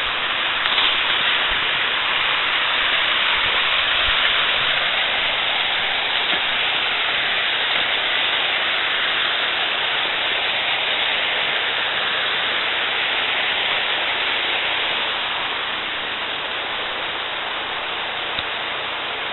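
Steady rush of a river's cascades, an even hiss of white water. It grows a little quieter in the last few seconds.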